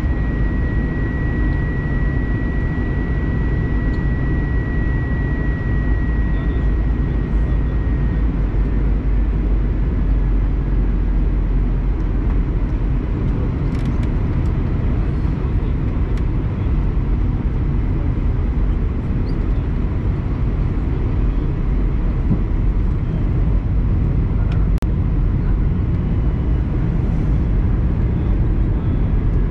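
Steady, deep cabin noise of an Airbus A321-200 in flight: airflow and engines. A thin high tone fades out about seven seconds in.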